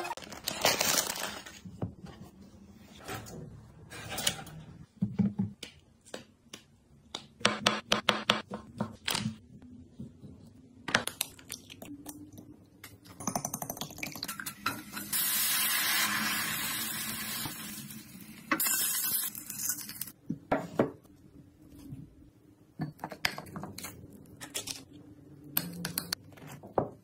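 Kitchen prep sounds: a metal whisk and spoon tapping, clicking and scraping against glass bowls, with a steady hiss lasting several seconds in the middle.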